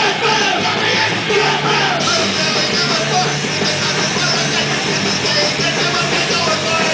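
Punk rock band playing live and loud, with yelled vocals over the full band.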